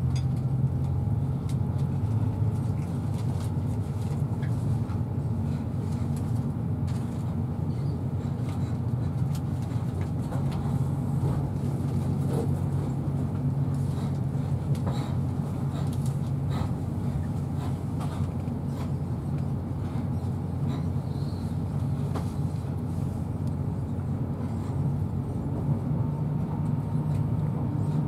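Running noise inside a passenger coach of an InterCity 125 (Class 43 HST) train under way: a steady low rumble of wheels on rails with a faint whine above it. Faint clicks come and go, mostly through the middle stretch.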